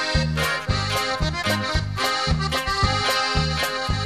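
Norteño band music in an instrumental passage: an accordion plays the melody over a steady, evenly repeating bass beat, with no singing.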